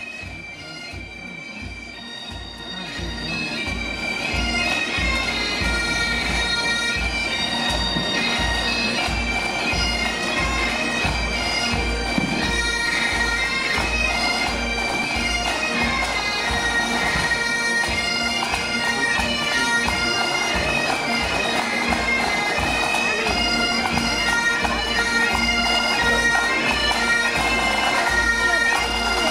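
Scottish pipe band playing: Great Highland bagpipes carrying a melody over their steady drones, with snare drums and a bass drum keeping a regular marching beat. The music grows louder over the first few seconds, then holds steady.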